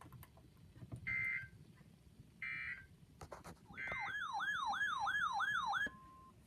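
Three short bursts of EAS digital data tones, the end-of-message signal that closes an emergency alert, followed by about two seconds of an electronic siren-like tone warbling up and down about two and a half times a second, then a brief steady beep.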